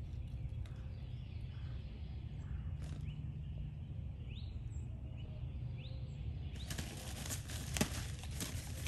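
Puppy's paws scratching and digging in loose pine needles on plastic-wrapped pine-straw bales, a dense crackling rustle with sharp clicks starting about two-thirds of the way in. Before that, a few faint bird chirps over a steady low outdoor rumble.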